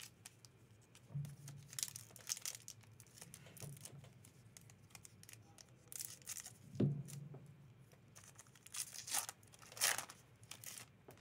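Foil Magic: The Gathering booster pack wrapper crinkling in the hands, snipped open with scissors and pulled apart, in scattered bursts of crackle and tearing. A soft knock comes a little past halfway.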